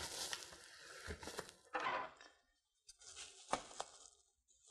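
Bubble wrap crinkling and rustling as it is handled around a boxed-up resin printer, in short bursts with a brief pause midway and a few sharp crackles.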